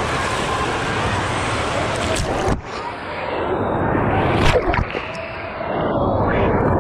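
Wave pool water churning and splashing, heard as a steady loud noisy din. About two and a half seconds in, the sound turns muffled and sloshing as water washes over the microphone, with a few short splashes after.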